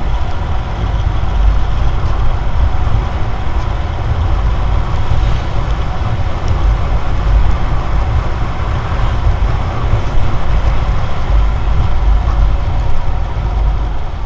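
Wind buffeting the camera's microphone on a moving RCS 125 motorcycle, a heavy fluctuating rumble over steady engine and road noise.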